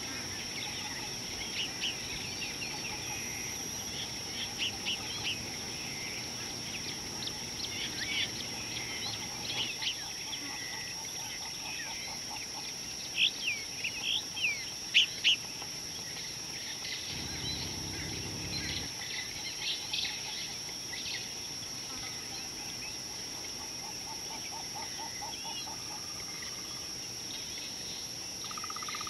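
Outdoor bush soundscape: wild birds chirping and calling throughout over a steady high-pitched insect drone, with a run of louder chirps about halfway through. A brief low rumble comes soon after.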